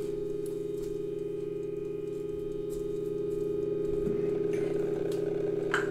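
A steady low hum of several held tones, with a few faint clicks.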